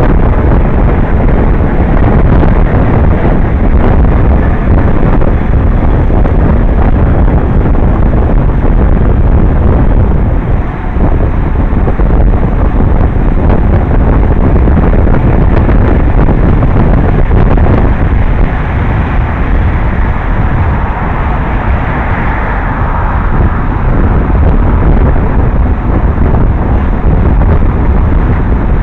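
Wind buffeting the microphone of a camera on a moving road bike: a loud, steady, low rumble of air noise.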